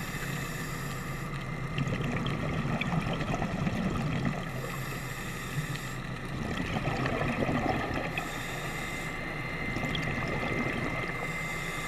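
Scuba regulator breathing heard underwater: a hissing breath comes roughly every four seconds over a steady low underwater rumble.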